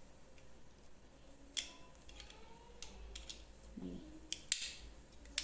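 Scattered light plastic clicks and taps, about half a dozen, from handling a toy pistol's magazine while pressing plastic cartridges into it.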